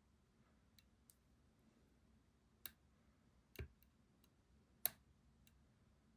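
Lock picking tools working a pin-tumbler challenge lock: a few sharp, scattered metallic clicks of pick and tension wrench in the keyway, with a dull knock about halfway through and the loudest click near the end.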